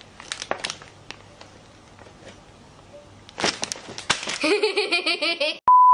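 Light crinkling and rustling of plastic packaging and a paper bag as a squishy is pulled out. A voice follows for about two seconds, then a short, loud, steady electronic beep near the end.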